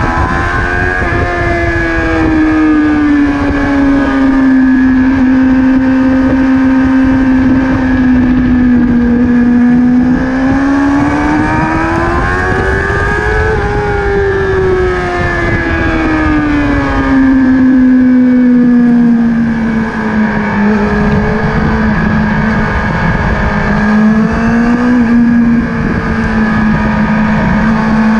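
Sport motorcycle engine running at high revs at track speed, with heavy wind buffeting on the tail-mounted microphone. The engine note climbs for a few seconds around the middle, then eases down slowly and holds steady.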